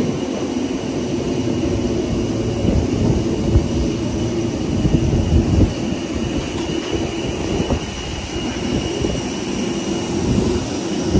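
Steady jet airliner engine noise: a continuous low rumble with faint steady high-pitched whine above it.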